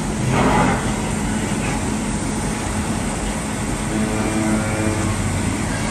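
Gildemeister Sprint CNC lathe running a cutting cycle: a steady machine hum with the spindle turning and coolant spraying over the part. About half a second in there is a brief louder rush of noise.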